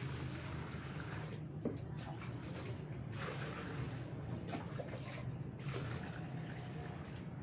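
Water scooped with a plastic dipper and poured into a plastic bucket: splashing and pouring in about three bursts of a second or so each, as the bucket is filled by hand.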